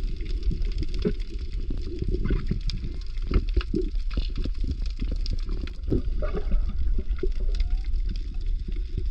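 Underwater ambience: a steady muffled low rumble, crowded with bubbling, popping and clicking, with a few short rising chirps.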